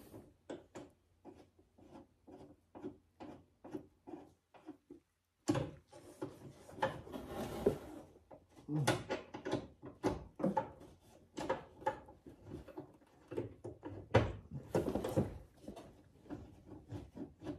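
Light clicks and knocks of plastic car body parts being handled and worked into place by hand, evenly paced at about two a second at first. After an abrupt break about five seconds in, a busier run of irregular knocks, clunks and rubbing.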